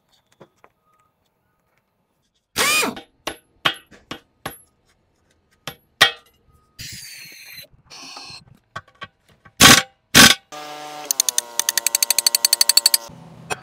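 Hand-tool work on a steel heavy-equipment wheel: sharp metal knocks and clanks, some of them ringing, a short scrub of a gloved hand across the rim, and two loud knocks. Near the end comes a fast, even mechanical rattle over a steady hum.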